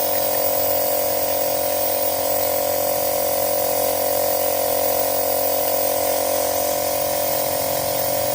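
Steady hum of a small motor or pump running without a break, with a constant hiss over it.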